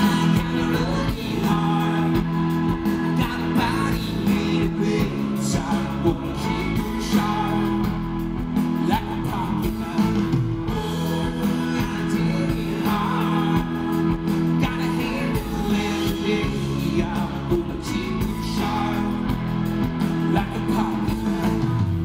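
Live rock band playing a song, with electric guitars, bass and drums and a lead singer.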